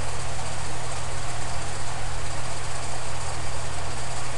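Steady low hum with an even hiss over it, the background noise picked up by a narration microphone at a computer.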